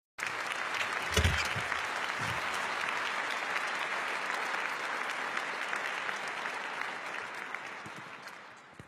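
Audience applauding, a dense steady clapping of many hands that dies away near the end. A low thump about a second in.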